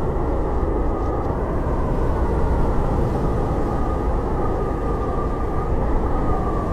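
Howling blizzard wind: a steady, deep rush with a faint whistling howl that wavers in pitch and swells near the end.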